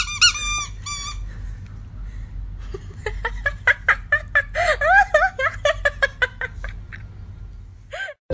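Toy poodle puppy whining and yipping: a few short squeaky whines at the start, then a quick run of short high cries from about three seconds in.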